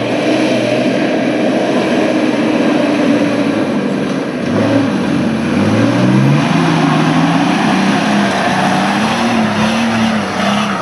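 Nissan Patrol ute's engine working hard under load as it pushes through deep mud. It holds a steady note at first, then revs up sharply about halfway through and keeps rising and falling as the throttle is worked.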